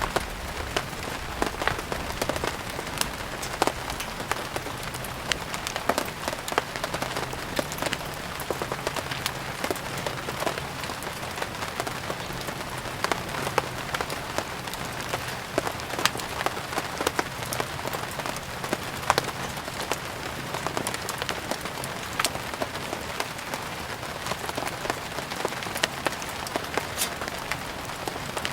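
Steady rain falling, with frequent sharp crackles and pops of a burning wood fire scattered irregularly through it.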